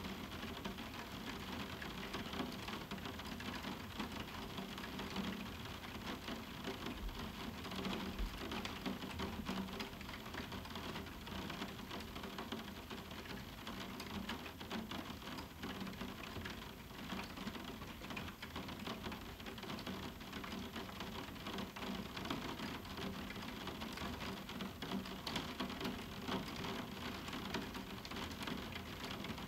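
Moderate summer rain falling steadily on a roof window: a dense, even hiss of countless small drops striking the pane.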